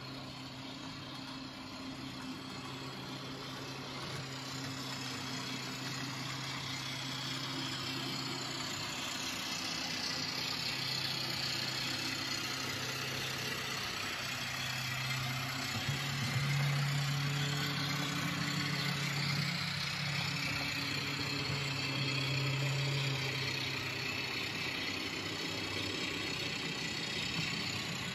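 Model train running on the layout: a steady electric motor hum with wheel-on-rail hiss, growing louder about halfway through.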